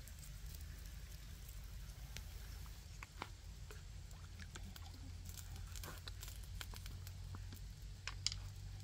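Open wood fire crackling under a wok of simmering duck broth: scattered small crackles and pops over a low steady rumble, with a few sharper clicks about three, six and eight seconds in.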